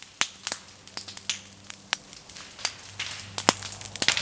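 Low-intensity fire burning through dry leaf litter and understory plants, crackling with irregular sharp pops and snaps, a few a second, coming thicker in the second half.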